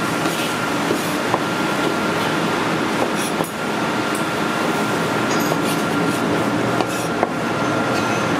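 Steady loud machine hum and hiss with a thin high whine in it, and a few scattered sharp knocks of a cleaver blade striking a bamboo cutting board while snow peas are chopped.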